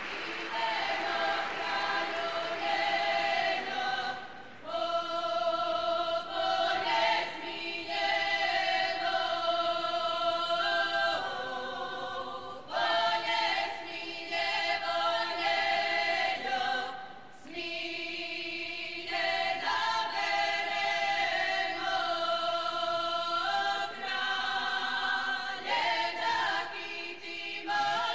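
A women's folk group singing a Slavonian kraljice (queens') song unaccompanied, in several voices. The long held phrases are broken by short breaths about every four to nine seconds.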